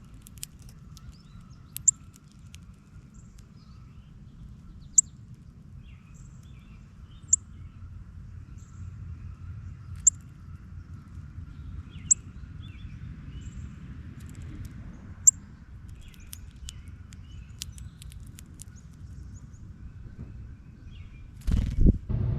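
Songbird chip calls: single sharp, high, very short chips repeated every two to three seconds over a low steady outdoor hum. A loud knock near the end.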